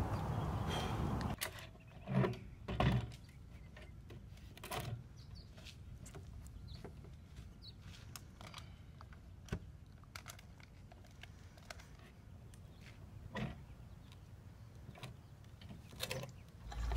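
A folding plastic table being unfolded and set up: scattered knocks and clicks from its metal legs and hinges, with a few heavier thumps in the first five seconds and quiet in between.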